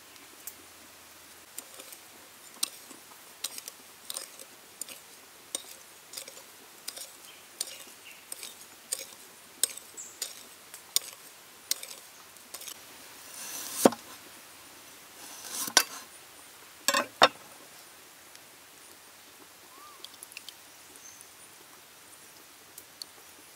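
Metal spoon clinking against a ceramic bowl while stirring a sauce: a regular run of light clinks, about one or two a second, then a few louder, longer scrapes past the middle, with little after that.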